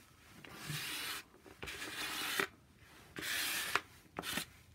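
Four rasping scraping strokes, each under a second, across a sheet of paper coated in shaving cream and acrylic paint during shaving-cream marbling, with a light click at the end of two of the strokes.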